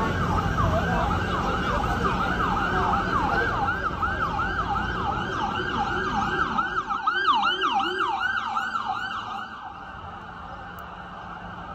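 Emergency vehicle siren in a fast yelp, sweeping up and down about three times a second over street traffic rumble. It is loudest about seven seconds in and cuts out near ten seconds, leaving only the traffic.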